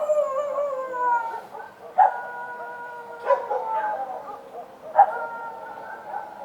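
Street dogs barking and howling: about four sharp barks, each running straight into a long, slowly falling howl, with more than one dog's howl overlapping.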